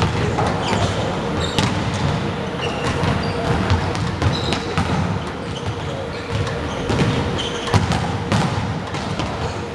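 Sports-hall ambience: scattered sharp thuds and knocks echoing in the hall, over a murmur of voices.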